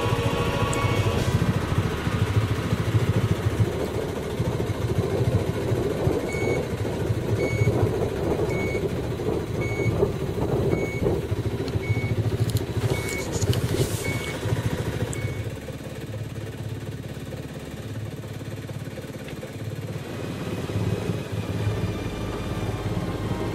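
Boat engine running steadily, with an electronic alarm beeping about once a second for roughly ten seconds before it stops, the pattern of a depth sounder's shallow-water alarm while feeling a way across shoal water.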